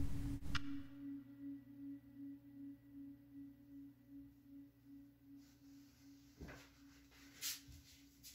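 A single sustained low tone, ringing like a tuning fork or singing bowl, with a slight steady pulse, slowly fading away. A soft click sounds about half a second in, and two faint brief noises come near the end.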